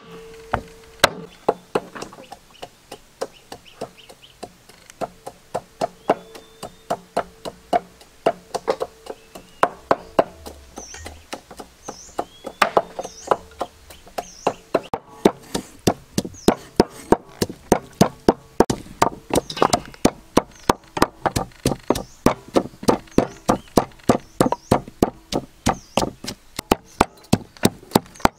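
Knife chopping on a wooden cutting board, a steady run of sharp knocks that speeds up to about three a second in the second half.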